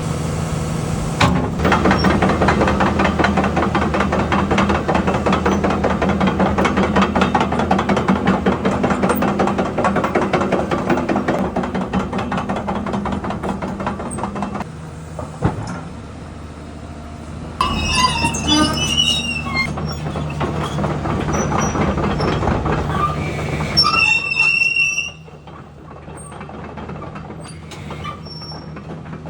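Tracked excavator working: its diesel engine runs steadily under a fast metallic clatter of steel tracks for about the first fifteen seconds. Later come several seconds of high metal-on-metal squeals, which stop about 25 seconds in.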